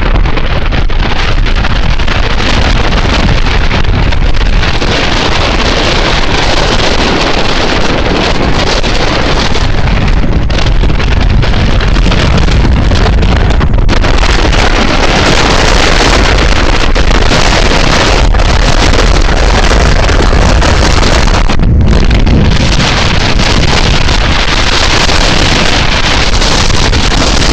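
Heavy wind buffeting the microphone of a moving vehicle, a loud steady rush with low rumbling, over the vehicle's running and road noise.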